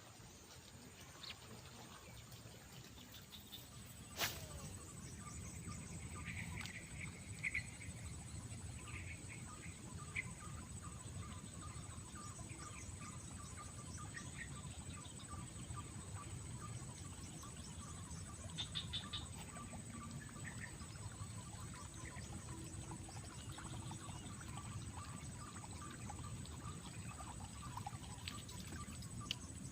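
Outdoor natural ambience of birds calling and chirping over a steady, thin, high insect drone. There is a single sharp click about four seconds in.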